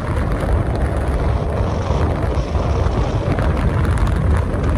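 Wind buffeting the microphone while riding a motorbike along a road: a steady, loud, low rumble of wind and travel noise.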